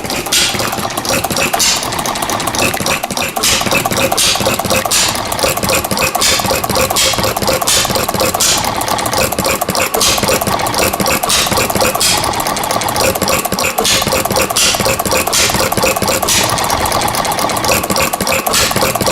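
Vaughn horizontal side-shaft hit-and-miss model engine, all cast iron, running steadily with a fast, continuous mechanical clatter.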